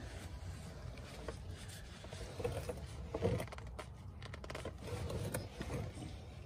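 Faint rustling and light scrapes of gloved hands handling a shop rag around the oil-filter mount, over a low steady background rumble.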